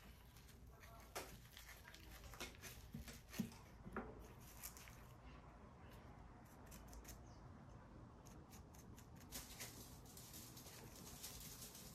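Faint clicks and rustles of a bamboo rolling mat and hands as a gimbap is rolled and pressed, with a few sharper taps in the first few seconds.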